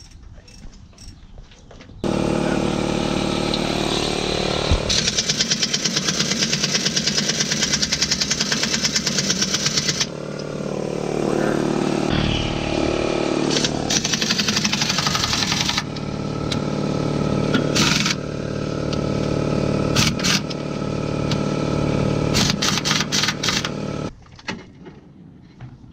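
An electric motor running under power for about twenty seconds: it switches on abruptly about two seconds in, runs with a steady pitch that wavers and pulses as the load changes, and cuts off suddenly near the end.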